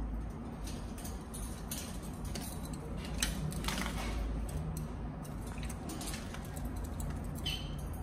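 Rosy-faced lovebird bathing in a small water dish: splashing and wing-flapping as a patter of small clicks and splashes, busiest about three to four seconds in, over a steady low hum.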